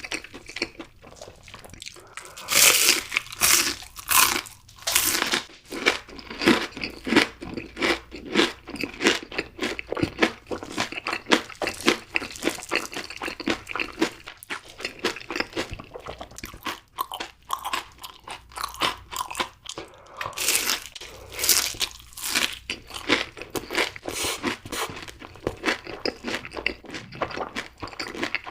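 Close-miked eating of crunchy fried food: bites crackling sharply, with steady chewing in between. The loudest crunching comes a few seconds in and again about twenty seconds in.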